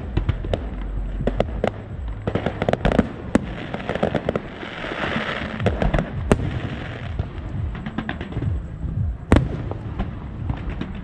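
Aerial firework shells bursting in quick, irregular succession: many sharp bangs over a low rumble, with a stretch of hissing crackle about halfway through and the loudest bang near the end.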